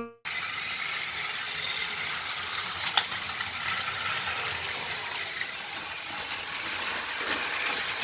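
Motorised plastic toy train running along plastic track: a steady whirring rattle of its small motor, gears and wheels, with one sharp click about three seconds in.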